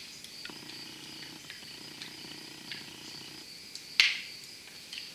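Small crinkles and ticks of thin pop-can aluminium being folded and pinched with pliers, with one sharp crackling click about four seconds in, over a faint steady high whine.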